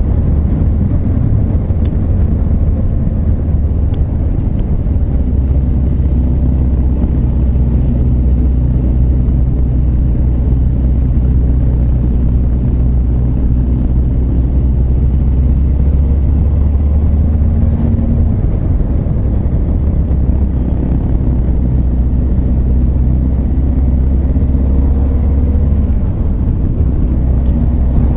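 Honda CB1300 Super Bol d'Or's inline-four engine running under way at cruising speed, mixed with wind and road noise. Its note shifts a little about two-thirds of the way through as the throttle changes.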